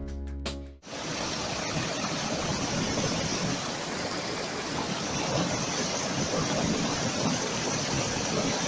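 Music stops abruptly under a second in, giving way to a steady rushing noise of the wind-or-water kind.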